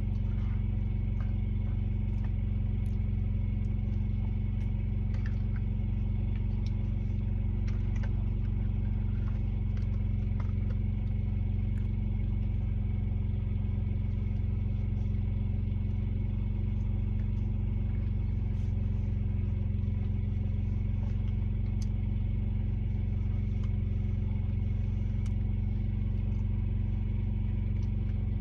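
Truck engine running at a steady idle, a constant low hum heard from inside the cab, with faint scattered clicks on top.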